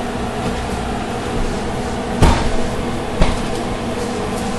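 Two sharp knocks about a second apart, over a steady kitchen hum.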